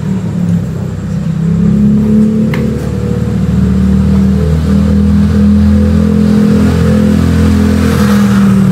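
An engine running steadily and loudly, a low even hum with slight wavers in pitch; it is not the engine on the bench, which is only being turned by hand.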